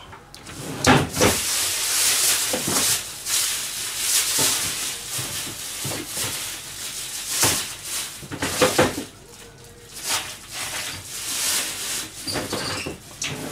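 Rustling of packaging and a few light knocks as food is rummaged through in a kitchen while someone searches for napa cabbage; the noise comes and goes in swells.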